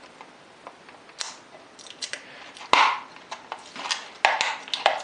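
Stiff clear plastic clamshell packaging with sharpening discs inside being handled and pressed shut: a run of clicks, crackles and small knocks, the loudest a little under three seconds in and again just after four seconds.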